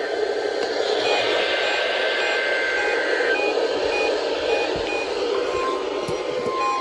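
Weather-radio receiver hissing with static. A pair of steady high data tones cuts off abruptly about three seconds in. Near the end, a steady single-pitch alarm tone begins, typical of the 1050 Hz warning alarm of a weekly weather-radio test.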